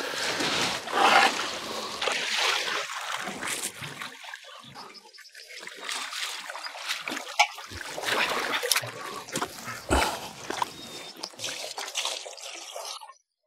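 Water splashing and trickling as it is poured from a bucket into the priming port of a portable engine-driven water pump, priming the pump before it is started, with scattered knocks from handling the pump and its hose fittings. The pump engine is not running.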